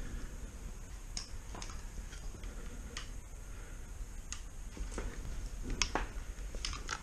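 Quiet, careful footsteps and gear movement on a gritty concrete floor: scattered soft clicks and scuffs at irregular spacing over a low steady rumble, the strongest just before the end.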